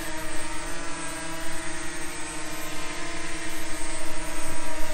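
DJI Mavic Mini quadcopter's four propellers whining steadily as the drone hovers, holding one even pitch.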